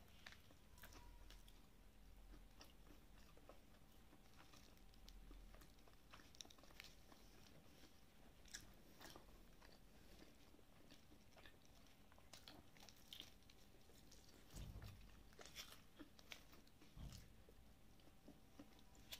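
A person chewing a crispy breaded fried chicken cutlet, faint, with scattered sharp crunches of the coating.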